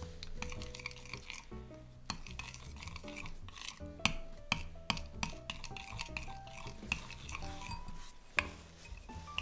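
Metal spoon stirring melted chocolate into warm cream in a ceramic bowl, scraping and clinking repeatedly against the bowl's sides.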